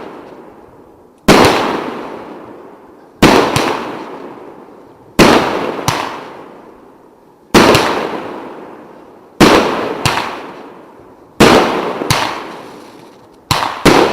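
Firework battery (cake) firing shot after shot, a loud bang about every two seconds, each fading away, several followed closely by a second crack.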